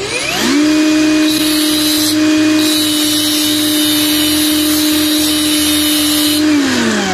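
Electric grinder motor spinning up to a steady high pitch, grinding copper wire against the wheel in two passes with a short break about two seconds in, then spinning down near the end. The copper wire is being ground thinner to fit a soldering iron as a tip.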